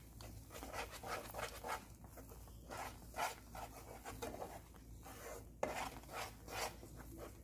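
Wooden spatula scraping and stirring a thick, wet milk-powder khoya (mawa) mixture around a pan, in quick repeated strokes about two or three a second. One sharper knock sounds about two thirds of the way through.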